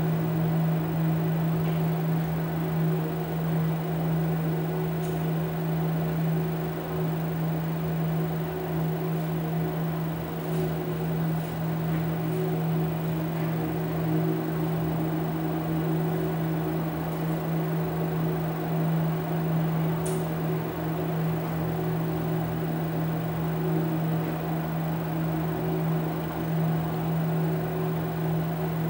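Steady low hum with a strong single pitch and a fainter higher tone above it. It runs on unchanged, with a few faint ticks now and then.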